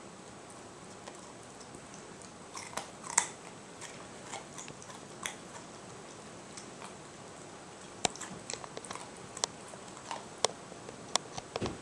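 A dog chewing a raw carrot: sharp, irregular crunches, a cluster about a quarter of the way in, then a quieter spell, then a denser run of crunches near the end.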